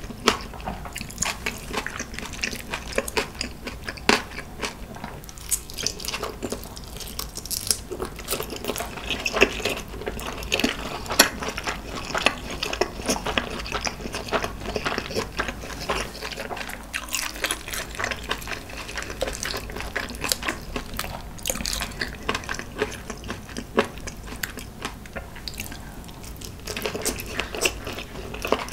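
A person chewing food close to the microphone with her mouth closed: many irregular wet smacking clicks, with a bite near the end.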